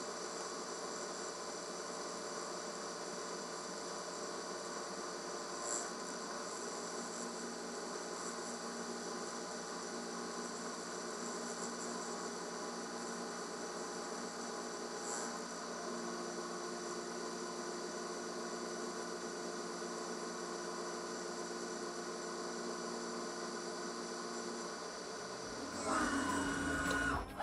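ProtoTRAK RMX CNC milling machine running a chamfer cut by itself: a steady high whine of several tones from the spindle and axis drives, with a faint tick twice and a small shift in pitch about midway as the tool turns the block's corners.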